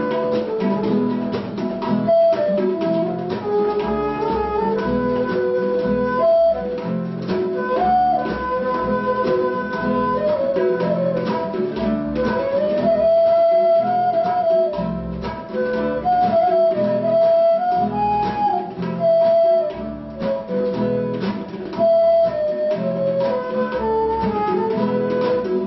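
Acoustic trio of bansuri bamboo flute, acoustic guitar and tabla playing a melody: the flute carries a gliding tune over plucked guitar accompaniment and tabla strokes.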